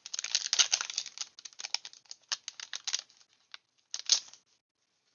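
Foil wrapper of a Pokémon TCG booster pack crinkling and crackling as it is handled and opened, dense for the first three seconds, then sparser, with one last short burst about four seconds in.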